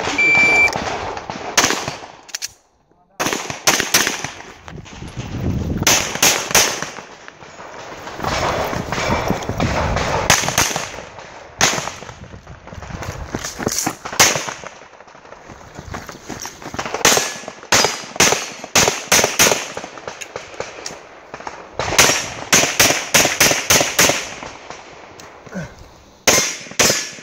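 A short electronic shot-timer beep, then a pistol firing many quick shots in clusters, with short pauses between the clusters.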